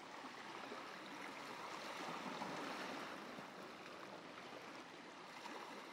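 Faint, steady wash of sea surf on a sandy beach, swelling a little in the middle and easing off again.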